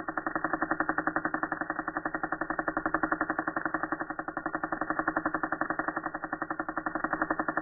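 Cartridge tattoo machine running steadily while its needles work ink into the skin: a rapid, even buzzing pulse.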